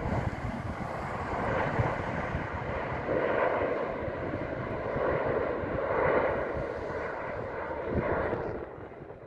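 Boeing 787 Dreamliner's jet engines on final approach, a steady rushing jet noise with a faint whine that swells a few times as the airliner passes, then fades near the end.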